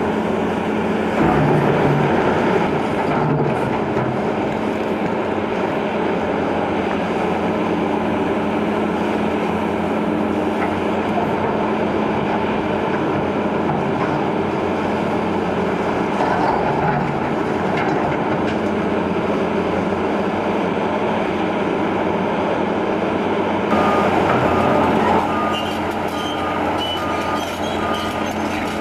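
Liebherr R 944 C crawler excavator demolishing a brick building: its diesel engine runs steadily under hydraulic load while brick and concrete rubble crunches and clatters, loudest about a second in and again near the end. A repeated short beeping alarm sounds near the end as the machine moves.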